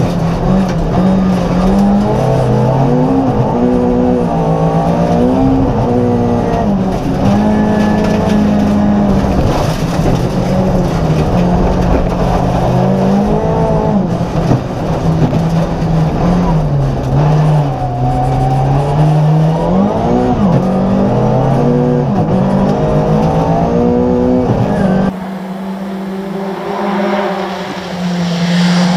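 Volvo 240 rally car engine at full attack on a special stage: the revs climb and fall again and again through the gears, with tyre noise. About 25 seconds in, the sound turns quieter and thinner for a few seconds, then the engine note comes back.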